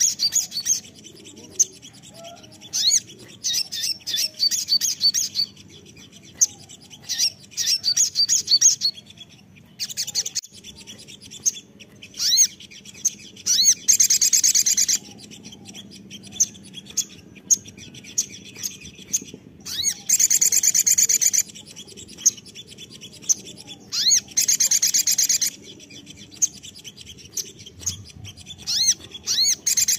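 Olive-backed sunbird (sogon) singing: strings of quick, high chirps broken by loud, rapid buzzy trills of about a second each, four times.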